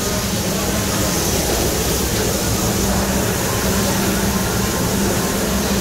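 Meat and vegetables sizzling on a hot Mongolian barbecue flat-top griddle, with oil squirted onto the plate, over a steady low hum.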